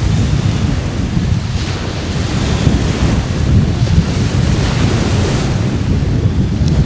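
Wind buffeting the microphone in a loud, steady rumble, with small waves washing onto the beach as a few slow swells of hiss behind it.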